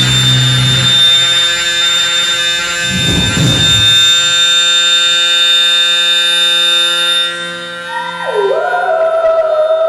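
Live electronic noise music: a dense drone of many steady held tones over hiss. A rough noise swell comes about three seconds in, after which the low end drops away, and near the end new wavering tones swoop down and then step up in pitch like a siren.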